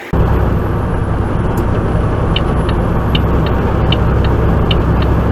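A tractor-trailer truck driving at speed: steady engine and road noise. From about two seconds in, a regular light clicking comes about twice a second.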